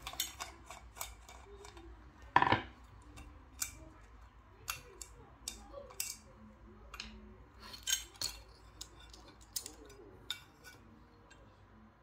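Small metal clicks and clinks as a screwdriver takes the screws out of an aluminium electric quad bike speed controller case and the case is worked off the circuit board. A louder knock with a short ring comes about two and a half seconds in.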